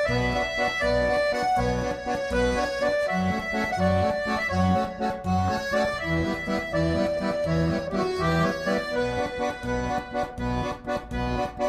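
Accordion music: a lively melody over a steady, regularly pulsing bass accompaniment, cutting off abruptly at the end.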